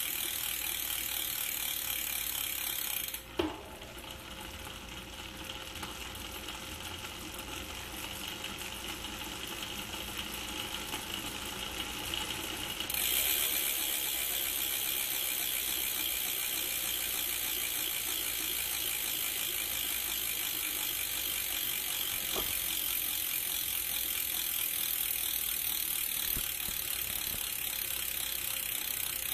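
MOB mountain-bike rear hub freewheeling: the pawls ratchet in a continuous fast, high-pitched buzz. About three seconds in there is a knock and the buzz drops quieter, building back slowly until it jumps back to full loudness around thirteen seconds in.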